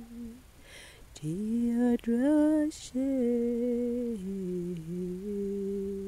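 A person humming a slow wordless tune in long held notes. It breaks off near the start with an audible breath, glides up into a new phrase, takes another breath, then steps down to lower held notes.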